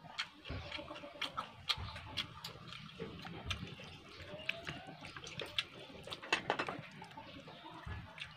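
Close-miked chewing and mouth sounds of a person eating, with many irregular sharp clicks and a denser run of them about six seconds in.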